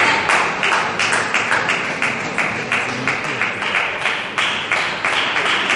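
Spectators clapping together in a steady rhythm, about four claps a second.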